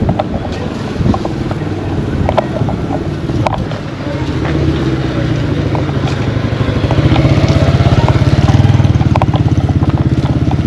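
A motor vehicle engine running close by with a rapid, even beat, growing louder from about four seconds in and loudest near the end. A few sharp knocks come in the first few seconds.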